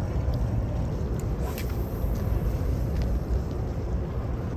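Steady low outdoor rumble, with a few faint light ticks over it.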